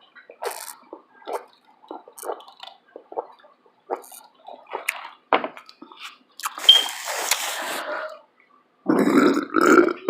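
Close-up chewing and mouth smacks, then about two seconds of rustling around six seconds in. Near the end comes a loud burp in two deep pulses.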